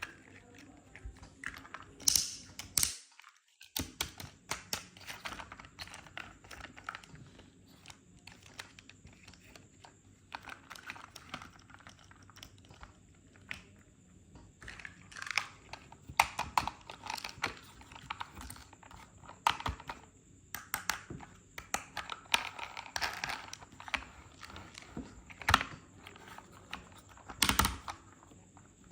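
Toy cars and their plastic packaging being handled: irregular sharp clicks and taps, with stretches of crinkling rustle.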